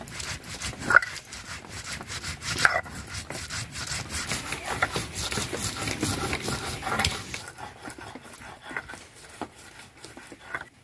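Stone roller rubbing and grinding mustard seeds, poppy seeds and green chillies into a wet paste on a flat stone grinding slab (sil-nora). It is a rasping scrape, densest from about three to seven seconds in and then quieter, with a few short sharp sounds standing out about a second in and near three seconds.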